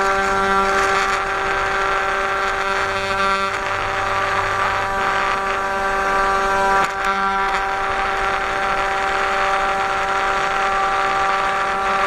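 A 500 W spindle on a 3018 CNC router whining at a steady high pitch while its end mill cuts a profile through wood, with a rough cutting noise over it and a lower hum that comes and goes, about three seconds in and again near the end.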